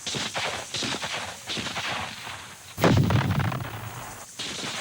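Rifle gunfire: a string of sharp shots, roughly a second or less apart, with a louder, deeper report about three seconds in.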